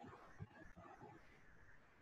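Near silence: faint room tone with a few indistinct low sounds in the first second.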